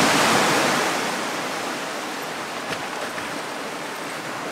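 Sea surf washing on a rocky shore: a rush of water noise that swells near the start and slowly eases off, with two faint clicks in the middle.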